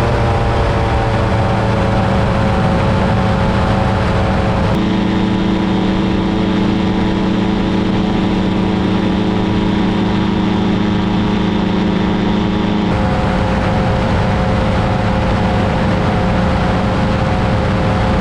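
Paramotor engine and propeller running steadily, with wind noise. The engine's tone shifts abruptly twice, where the footage changes clip.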